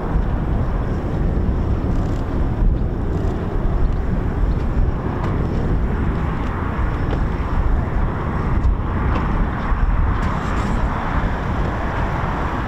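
Steady low jet rumble from the RC-135W Rivet Joint's four turbofan engines as the aircraft climbs away after takeoff.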